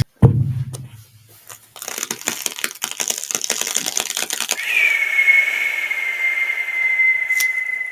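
Foley sound effects for an animated clip: a sharp thump, then a dense run of rapid clicking and crackling for about three seconds, then a long high held squeal that starts just past the halfway point.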